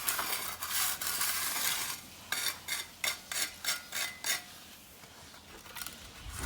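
Steel hand edger scraping over the edge of wet exposed-aggregate concrete, grating on the stones: a continuous scrape, then a run of short strokes about two seconds in, dying away near the end.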